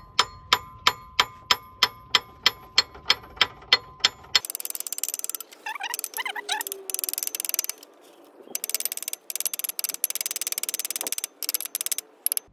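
A hammer tapping the camshaft into a Nissan YD25 cylinder head in evenly spaced, ringing metal strikes, about three a second, for roughly four seconds. After that comes several seconds of harsh hissing noise broken by short gaps.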